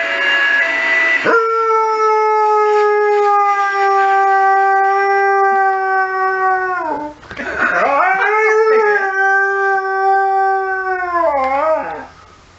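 An emergency-vehicle siren alternating between two pitches for about the first second, then a saluki howling. The howling is two long howls: the first slides slowly down in pitch and breaks off after about five seconds, and the second wavers as it ends.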